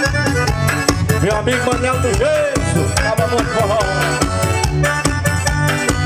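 Forró pé de serra music playing between sung verses: accordion melody over a steady, driving drum and percussion beat.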